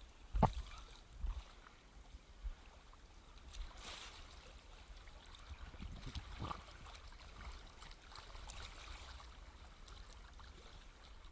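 Small sea waves washing faintly over a pebble beach. A sharp knock comes about half a second in, and two softer ones follow in the next two seconds.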